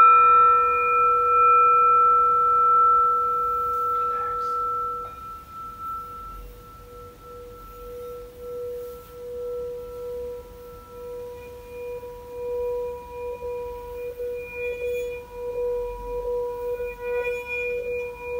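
Singing bowl ringing after a mallet strike, the tone fading over about five seconds. The mallet is then run around the rim, drawing out a sustained, wavering singing tone that swells again toward the end.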